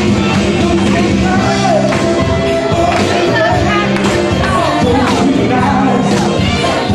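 Music with a singing voice, played loud and without a break.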